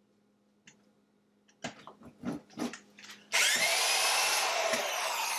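Power drill with a 1-inch hole saw cutting through the plastic of a refrigerator door. A few short bursts come first, then a little past halfway it runs continuously with a rising whine, and the pitch starts to fall near the end.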